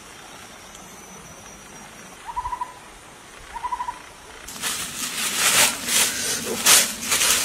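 Two short, rapidly pulsed animal calls about a second apart, then loud rustling and crackling of dry leaf litter and undergrowth from about halfway in, as plants are handled and pulled.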